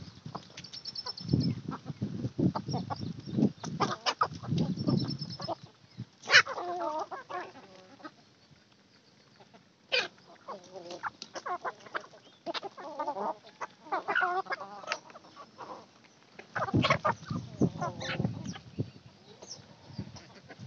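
Flock of free-range desi chickens feeding: hens clucking on and off, with sharp pecking clicks and low scuffling close by.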